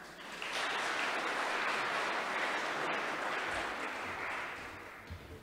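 Audience applauding, building about half a second in and dying away near the end.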